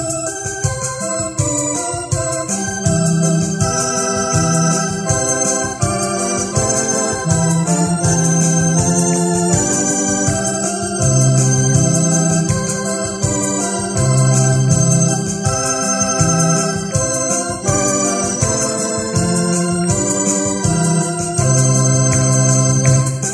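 Electronic arranger keyboard played with an organ voice: held chords that change every second or two over a moving bass line, with a steady beat underneath.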